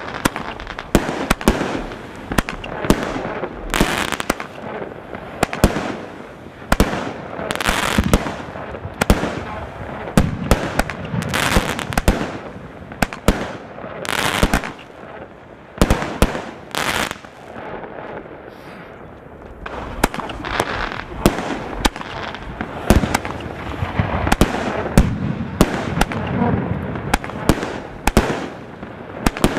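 Celtic 'Boudica' firework barrage cake firing a rapid series of shots: sharp launch and burst reports, one after another, with a short lull about two-thirds of the way through.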